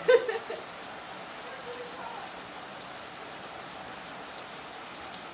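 Garden sprinkler spraying water, a steady patter of water falling on plants and soil. The sprinkler head is not spinning and may have seized.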